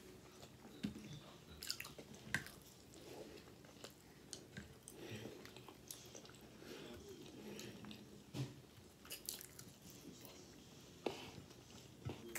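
Faint chewing and biting of crinkle-cut french fries, with scattered wet mouth clicks and smacks at irregular moments.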